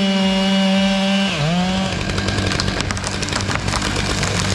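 Chainsaw running at high revs with a steady high engine note. About a second in, the pitch dips sharply and recovers as the chain loads up in the wood, and from there it cuts with a rough, crackling noise.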